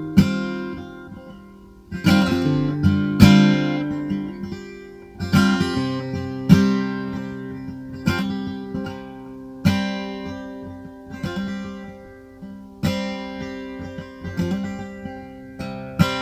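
Acoustic guitar music: chords strummed every second or two and left to ring out.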